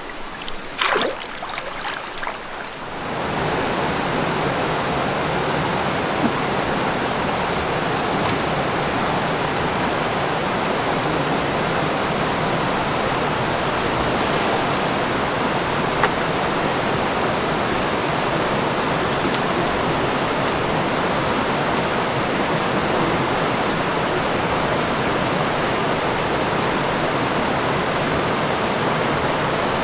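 Shallow rocky river rushing over boulders and small rapids: a steady, even rush of water that comes in about three seconds in. Before it, a quieter stretch with a high steady hum and a single knock about a second in.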